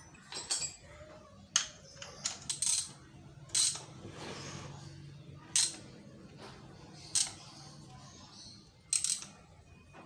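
Scattered metallic clicks and clinks, about eight over ten seconds, as a Peugeot 406 starter motor and a screwdriver are handled and worked together, with a short rustle around the middle.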